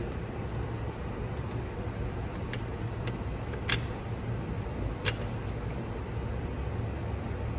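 Steady low mechanical hum with four short, sharp clicks about two and a half to five seconds in, the third the loudest: parts and film being handled and set in place on an OCA laminating machine.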